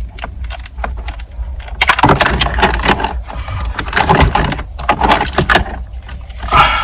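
Rapid clattering clicks and knocks of plastic and wiring as the loom is tucked behind a car stereo head unit and the unit is pushed into the dashboard opening, busiest in the middle few seconds.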